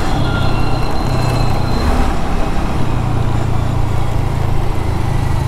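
Honda Dio scooter engine running while riding, a steady low hum under road and traffic noise.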